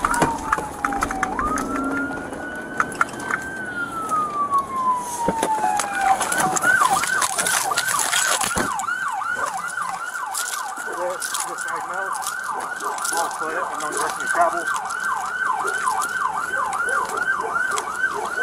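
Police car siren on the wail setting, slow falling and rising sweeps, switching about six seconds in to the fast yelp, a rapid warble of about two to three cycles a second. A few knocks are heard just after the change.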